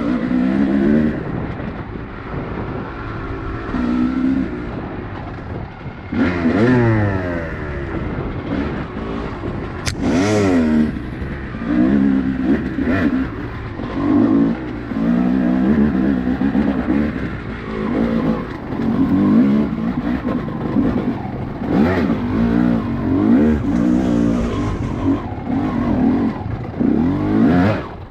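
Off-road vehicle engine running on a trail, its pitch repeatedly rising and falling as the throttle is worked, over a steady rumble.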